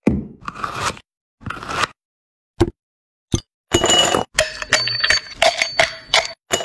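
A few separate knocks, then ice cubes clattering in a tall drinking glass and being crushed with a metal muddler: a dense run of clinks, with the glass ringing.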